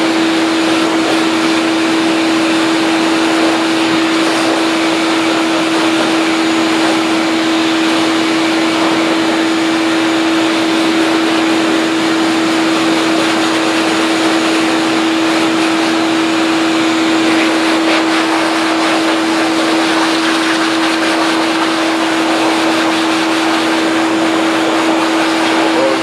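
Shop vac running steadily, blowing air to dry a duck's feathers: an even rush of air over a constant motor hum.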